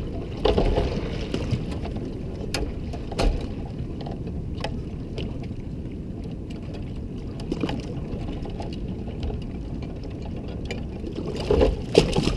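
Steady low rumble of a boat idling in neutral on the water, with scattered clicks and knocks from a wire crab pot being handled; the loudest knocks come near the end as a crab is pulled out.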